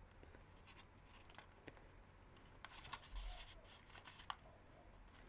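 Near silence with faint rustles and light clicks of thin card being handled and pressed by hands, a few brief ones clustered about three seconds in and again about a second later.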